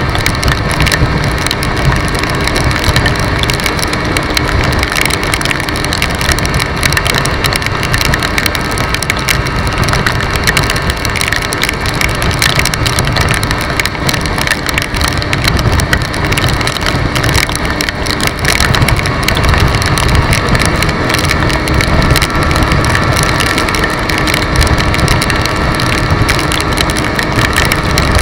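Yamaha scooter engine running steadily at cruising speed on a wet road, with rumbling wind on the microphone and the hiss of tyres and rain spray. The engine's tone shifts slightly about two-thirds of the way through.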